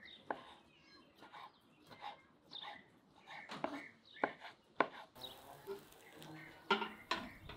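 A chef's knife dicing a tomato on a wooden cutting board, with sharp knocks of the blade on the board about once a second. About five seconds in, a steady hiss sets in, with a few louder knocks near the end.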